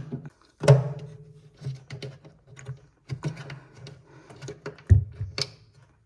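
Screwdriver turning out a screw from a plastic fitting on a refrigerator's inner wall: a run of small clicks and scrapes, with a louder click about a second in and a knock near the end.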